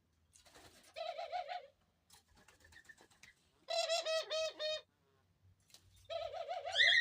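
Pet dove cooing in three short bursts, each a quick run of pulsed coos.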